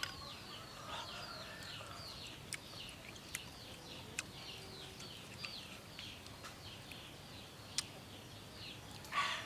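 Bird chirping over and over, a quick run of short falling notes, two or three a second, with a few sharp clicks in between.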